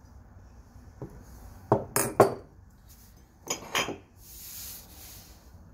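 Glass and ceramic pieces knocking and clinking on a tabletop as they are set down and picked up: a few sharp knocks, loudest about two seconds in and again past three seconds, then a short soft rustle.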